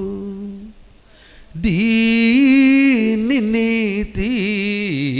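A man's voice chanting the Catholic words of consecration in Telugu on long held, sliding notes. The chant trails off, pauses for about a second, then resumes loudly.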